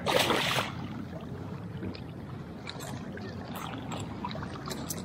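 A hooked peacock bass thrashes at the surface, making a short loud splash right at the start. This is followed by a steady low rushing noise with small scattered clicks.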